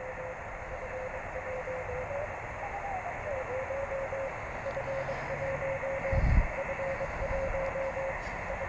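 Single-sideband radio receiver hiss with the FO-29 satellite's beacon heard as a faint whistling tone: steady at first, it wavers up and back down about three seconds in, then breaks up into short pieces. A low thump about six seconds in.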